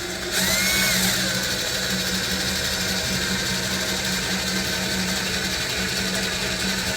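Small electric power tool motor running steadily while driving in the bolts of a fuel sender mounting plate. It pauses briefly just in, then runs on evenly.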